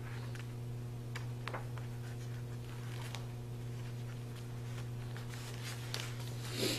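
Faint rustling and light ticks of paper cards being handled, over a steady low electrical hum.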